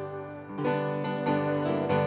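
Piano music: sustained chords struck about every two-thirds of a second, three times, after a brief lull at the start.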